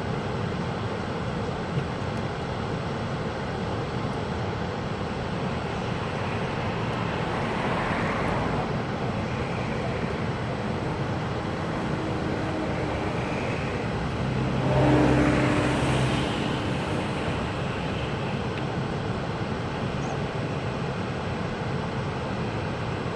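Steady rushing roar of a large waterfall. About two-thirds of the way in, a louder low hum swells and fades over it.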